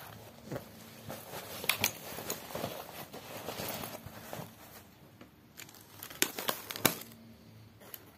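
Synthetic fabric of a travel bag rustling and crinkling as it is handled, with sharp clicks about two seconds in and a cluster of them around seven seconds.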